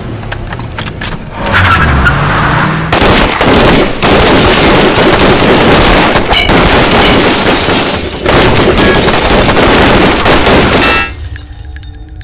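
Film sound of a car engine revving with tyre screech, then a long, dense volley of police pistol and rifle gunfire from about three seconds in, many shots overlapping. The firing cuts off suddenly shortly before the end.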